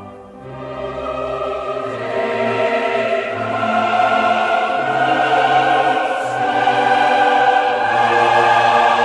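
Slow choral and orchestral background music with long held chords, swelling louder over the first few seconds.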